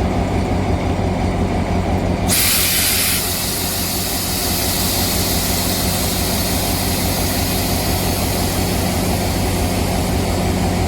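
Diesel locomotive engine idling with a steady low hum. About two seconds in, a sudden loud hiss of air starts, strongest for about a second, then carries on more quietly over the engine.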